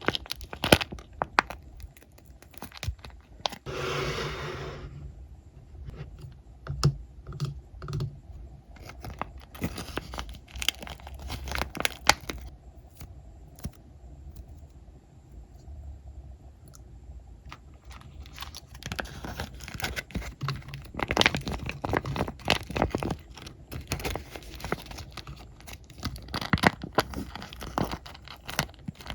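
Squishy toys being squeezed and pulled in the hands close to the microphone: an irregular run of sticky crackles, clicks and tearing, crinkly sounds. The crackling thins out for a few seconds midway, then grows denser again.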